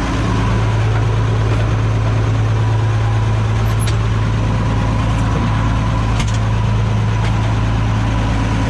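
Oliver 7300 combine running steadily while cutting wheat, heard from inside the cab: a loud, even low engine hum with a thin steady whine above it and a couple of faint ticks.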